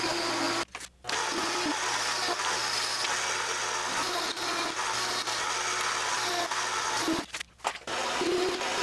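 Mini metal lathe turning a heavy mild steel part, the tool taking a steady cut as chips fly off; the cut is a light one, since full-depth cuts overload this small lathe and blow its fuse. The sound drops out briefly twice, about a second in and near the end.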